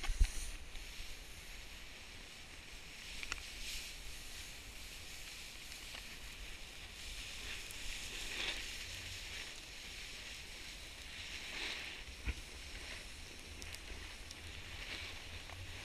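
Snowboard sliding over packed snow: a steady scraping hiss that swells now and then, over a low rumble of wind on the microphone. A sharp knock comes right at the start.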